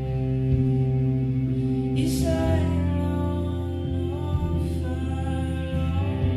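Slow, ambient soundtrack music of steady sustained chords, with a gliding sung line coming in about two seconds in.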